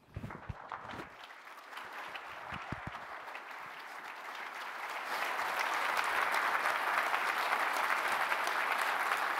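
Audience applause, the clapping building steadily and at its loudest over the second half. A few low thumps sound in the first three seconds.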